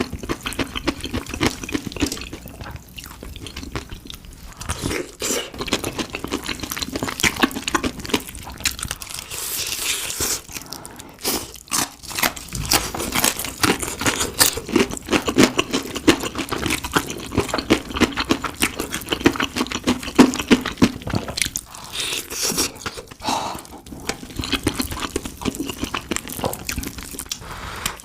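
Crunching and chewing of fried chicken: dense, crackly bites into the crispy coating, going on with only brief lulls.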